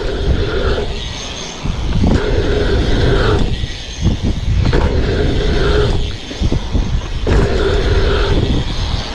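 BMX bike riding a line of dirt jumps: a rush of tyres on packed dirt and wind, with the rear hub buzzing as it freewheels in stretches of about a second that stop and start several times.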